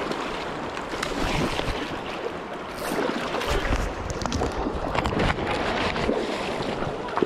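River water rushing, with wind buffeting the microphone in a low rumble about three and a half seconds in, and a few sharp clicks.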